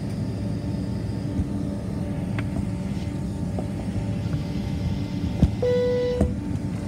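Cabin noise of a Boeing 767-300 taxiing: the jet engines at idle give a steady low rumble and hum. About five and a half seconds in comes a click, then a short single-pitch beep.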